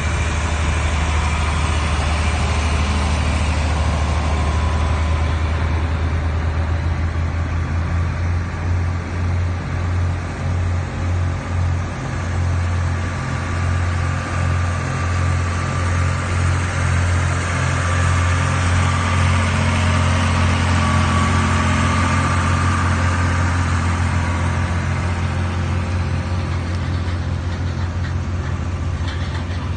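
Engines of antique farm tractors, a large John Deere among them, running steadily as the tractors drive past one after another. The deep engine note pulses unevenly for a few seconds in the middle.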